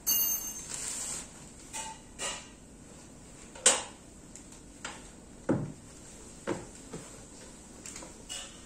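Office chair parts being handled during assembly: a string of separate hard plastic knocks and clunks, the sharpest a little under four seconds in.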